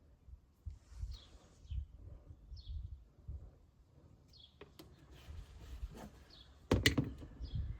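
Faint, short bird chirps over low rumbling handling noise, then a quick run of loud knocks and clatter near the end.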